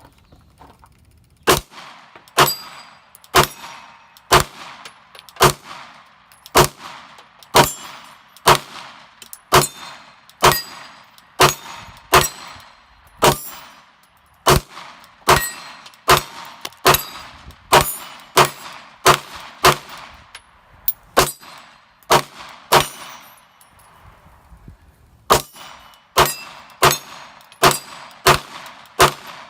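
Glock 23 pistol with a 9mm conversion barrel firing single shots at a slow, steady pace of about one a second, each sharp report followed by a short ring, with a brief pause about three quarters of the way in. It is cycling rounds from a 33-round KCI magazine.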